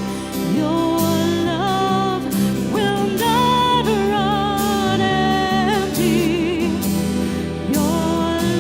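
Worship band music: a singer holds long notes with vibrato over keys and a steady bass line, with no clear words.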